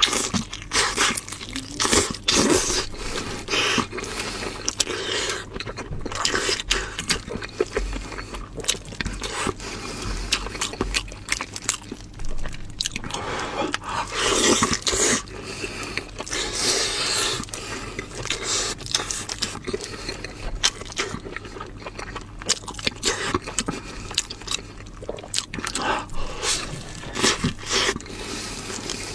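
Close-miked eating: a person biting into and chewing spicy lamb ribs, an uneven stream of crunchy bites, chewing and scraping clicks.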